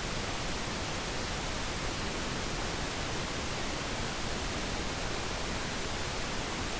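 Steady hiss with no distinct events: the recording's noise floor.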